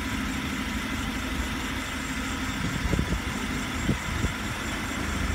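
Forklift engine running steadily at low revs, with a couple of short knocks about three and four seconds in.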